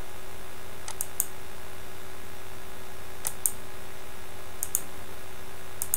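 Computer mouse clicking: a few sharp clicks, mostly in quick pairs, spaced a second or more apart, over a steady faint hum and hiss.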